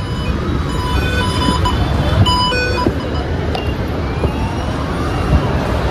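A run of short electronic beeps at several pitches, from about a second in for roughly two seconds, over a steady low rumble.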